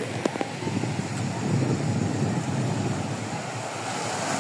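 Wind rumbling on an open-air phone microphone over the wash of the sea, with two sharp clicks just after the start.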